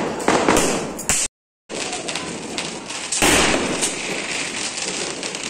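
Firecrackers going off repeatedly: many sharp cracks and pops, broken by a brief silent gap about a second and a half in.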